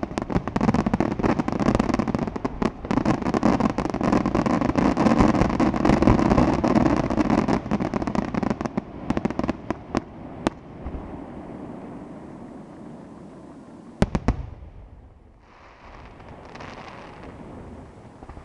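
Aerial fireworks in their closing barrage: a dense, continuous run of bangs and crackle that thins out about nine to ten seconds in. A quieter stretch follows, broken by two sharp bangs about fourteen seconds in.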